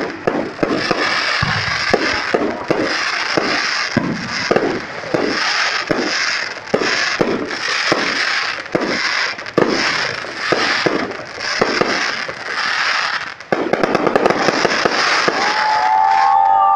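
Aerial fireworks shells bursting overhead, sharp bangs about two a second over a steady crackling hiss. A little past halfway the bangs merge into a dense, continuous crackle as crackling white stars fill the sky.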